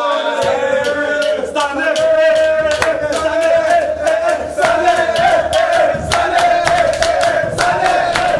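A group of young men chanting together in unison, on a held, sustained tone, with rhythmic hand clapping throughout.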